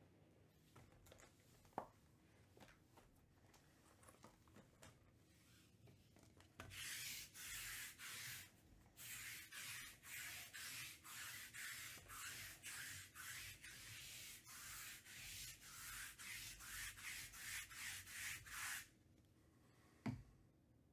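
A sticky lint roller rolled back and forth over a fabric table mat, a rasping, crackling stroke about twice a second, starting about a third of the way in and stopping about two seconds before the end. A sharp knock about two seconds in and another near the end.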